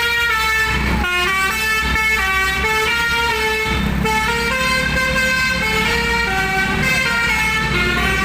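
Dump truck's multi-tone "telolet" air horn playing a tune of stepped notes, with the truck's engine running underneath.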